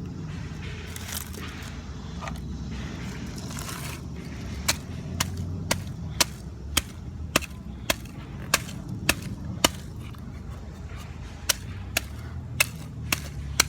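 Steady low rumble of wind on the microphone, with a run of sharp clicks or taps, about two a second, starting about four seconds in.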